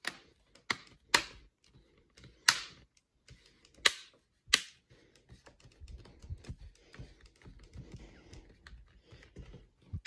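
Plastic screen bezel of an HP Chromebook 11 G5 snapping onto its clips as it is pressed around the edges: six sharp clicks over the first five seconds. After that come quieter rubbing and small clicks of hands on the plastic.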